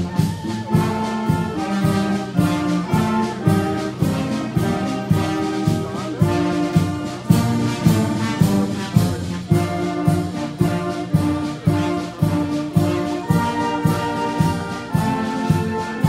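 Brass band (Blaskapelle) playing a Blasmusik piece: trombones and trumpets carry the melody over a steady beat of about two strokes a second.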